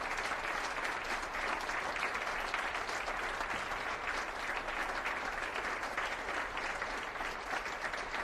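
Audience applauding steadily, many hands clapping at once, after an organ piece has finished.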